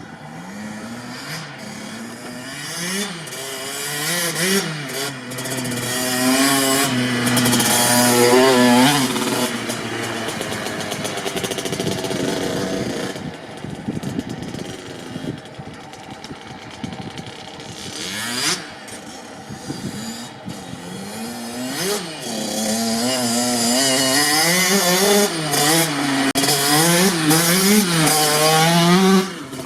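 Kawasaki KX65 dirt bike's small single-cylinder two-stroke engine being ridden hard: its pitch climbs in repeated steps as it revs up and shifts, twice building to a loud peak, with a quieter stretch midway.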